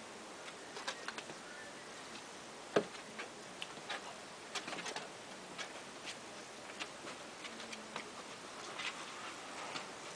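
Puppies moving about and playing, making irregular light clicks and taps, a few a second, with one louder knock about three seconds in.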